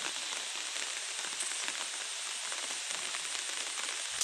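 Steady rain falling on leaves, a constant hiss with fine ticks.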